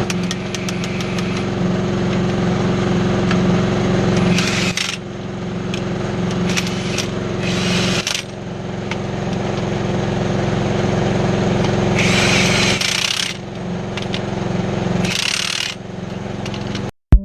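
A machine engine running steadily, with short bursts of hiss about four, six, twelve and fifteen seconds in.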